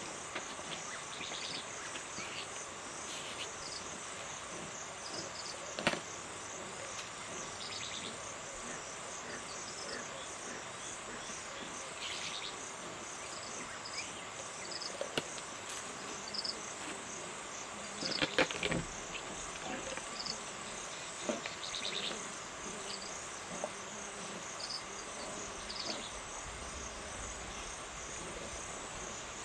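Steady chorus of crickets and other insects, with a fast pulsing high trill and a steady lower drone. Over it, scattered short cracks and crunches from a lioness chewing a warthog carcass, the loudest about six seconds in and a cluster around eighteen seconds.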